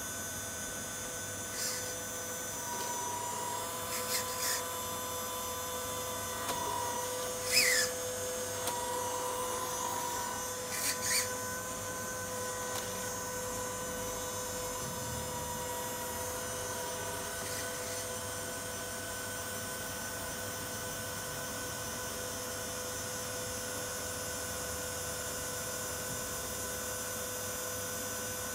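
Small electric motor of a 1/14 RC tipper truck's lift drive whining steadily as it raises the dump bed, with a few sharp clicks and knocks in the first half, the loudest about a third of the way in.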